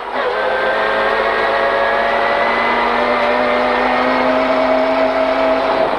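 Rally car engine under hard throttle, heard inside the cabin, its pitch climbing slowly and steadily through a gear, then falling near the end.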